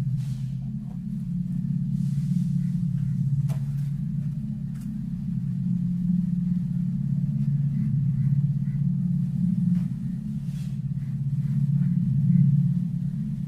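A steady low rumbling drone with a few faint clicks above it.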